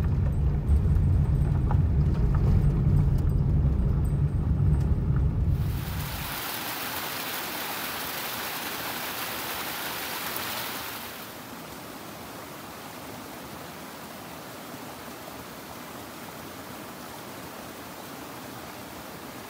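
Low steady rumble of a vehicle driving, heard from inside the cab. About six seconds in it cuts to a small stream rushing over rocks, an even hiss. The hiss drops to a quieter steady level about five seconds later.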